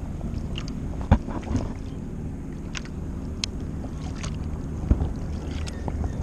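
Water sloshing against a paddleboard while a spinning reel is cranked to bring in a hooked fish, with scattered small clicks and two sharper knocks, about a second in and just before five seconds in.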